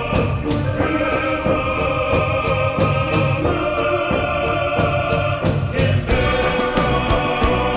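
Music with choir-like singing over a steady beat, with a change of section about six seconds in.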